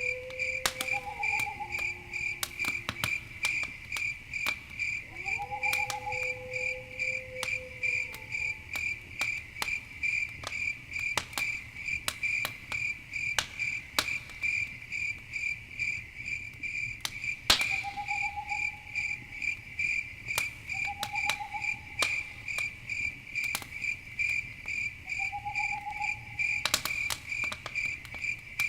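Crickets chirping in a steady, even rhythm, with the crackle and sharp pops of a campfire burning, one pop louder than the rest about two-thirds of the way through. A few lower, drawn-out calls from another animal come and go.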